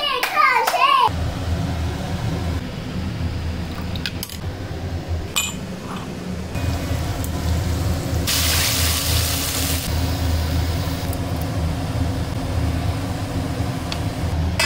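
Cooking in a pan: a steady low hum, with a hiss of hot oil sizzling for a couple of seconds just past the middle. A second of a toy's music and voice comes before it.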